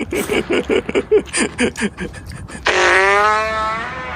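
Fart sound effect: a rapid sputtering string of short farts for about two and a half seconds, then one long, drawn-out pitched fart.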